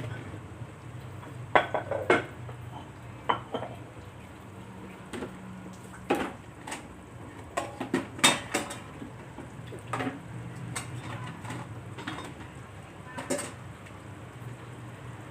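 A metal spoon clinking and knocking against a cooking pot while stirring, with irregular strikes over a low steady hum.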